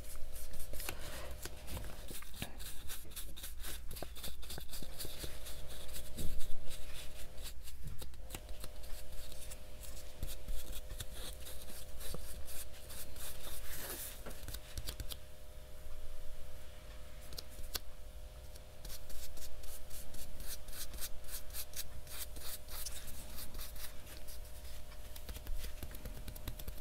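Fingers pressing and rubbing gold leaf down onto a paper journal page: dense, irregular papery rustling and crinkling with many small clicks.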